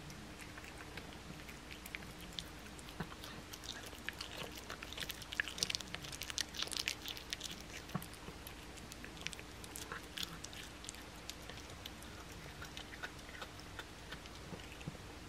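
Blue tortoiseshell cat eating a raw boneless chicken thigh: a run of small wet chewing clicks and smacks, busiest in the middle and thinning out towards the end.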